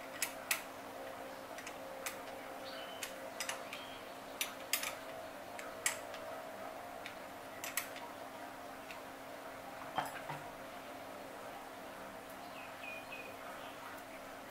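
Scattered sharp metallic clicks and taps, about a dozen, mostly in the first ten seconds, from small parts of an Okuma Komodo baitcasting reel being handled and fitted during reassembly. A faint steady hum runs underneath.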